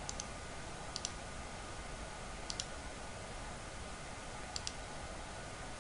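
Computer mouse button clicking four times, each a quick pair of ticks as the button is pressed and released, over a steady faint hiss.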